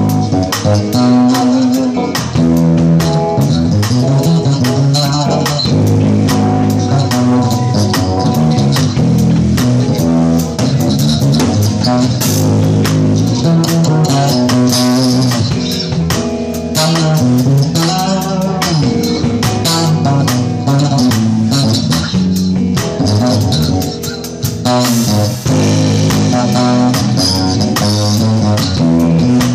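Electric bass guitar solo played fingerstyle with no slapping: quick, busy runs of plucked notes that move up and down in pitch.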